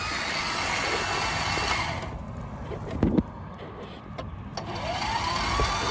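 A zero-turn mower's electric starter whirring without turning the engine over. There is a clunk about three seconds in, and near the end the starter spins up in a rising whine. This is the sign of a faulty starter.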